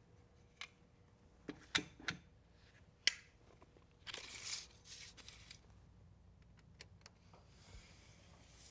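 Hand tools being handled: a spirit level being set down and a tape measure being used. There are several light knocks and clicks in the first three seconds, then a short scraping rasp about four seconds in.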